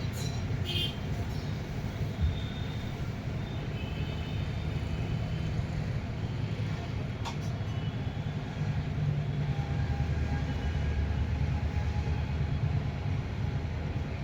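Steady low rumble of street traffic, with a few sharp clicks near the start and a single click about seven seconds in.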